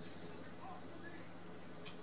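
Cat chewing a mouse: soft clicking crunches, one right at the start and another near the end, over a steady low hum.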